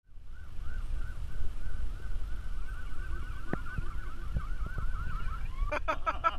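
An electronic siren warbling rapidly, about four up-and-down sweeps a second, over the low rumble of a car cabin in traffic; the warble stops near the end as a voice begins.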